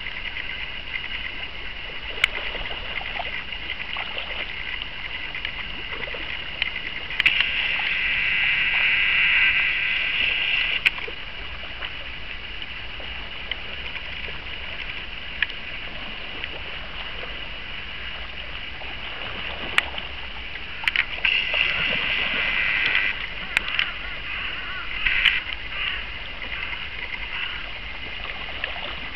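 Shallow river running over a gravel riffle, with two longer spells of louder splashing, the first a few seconds in and the second about two-thirds of the way through, plus a few sharp clicks.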